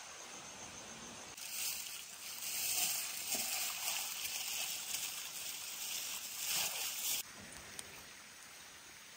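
Steady rushing of water, a loud even hiss that cuts in sharply about a second and a half in and stops abruptly about seven seconds in. Faint forest ambience with a few thin calls lies on either side.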